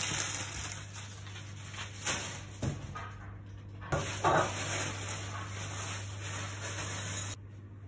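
Steady hiss over a low hum, with a few soft knocks and rustles as pieces of strawberry are dropped onto cornflakes in a bowl of milk. The hiss stops sharply near the end.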